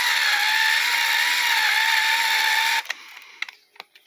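Battery-powered Black & Decker auto clamp's small electric motor and reduction gearing whining steadily as it drives the clamp tight. It cuts off abruptly about three seconds in, followed by a few faint clicks.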